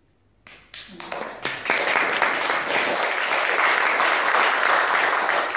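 Audience applauding: a few scattered claps about half a second in, building within about a second into steady applause.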